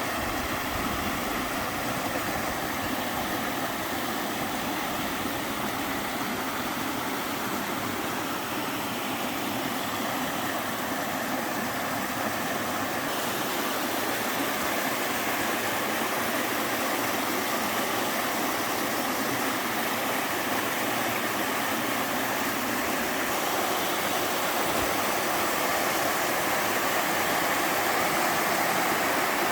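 Mountain stream pouring down a five-tiered slide waterfall over rock slabs: a steady rush of water that turns a little brighter about halfway and grows slightly louder toward the end.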